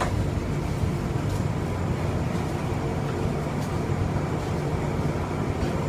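Bombardier Innovia APM 100 light-rail car running along its guideway, heard from inside the car: a steady, even low hum and rumble with no change in speed.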